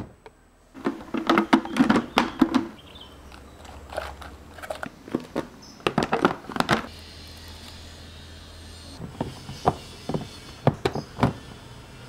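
Hard plastic food containers and lids clacking and knocking as they are set onto fridge shelves and slid into a clear plastic organiser. The knocks come in clusters: in the first three seconds, around six seconds in, and again near the end.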